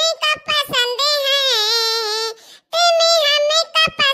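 A high, pitched-up cartoon character's voice in a sing-song, with long wavering held notes, in two phrases broken by a short pause about two and a half seconds in.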